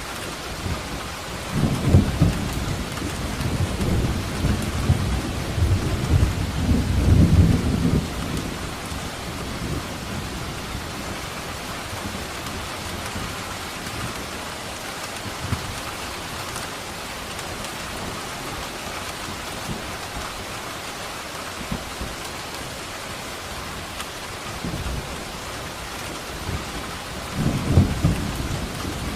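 Steady rain falling during a thunderstorm. A long roll of thunder rumbles from about two to eight seconds in, and another begins near the end.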